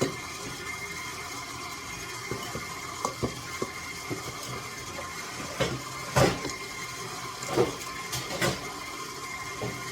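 Electric mixer running steadily on low, a constant whine, with scattered clicks and knocks as it works the cookie dough and ingredients go in; the loudest knock comes about six seconds in.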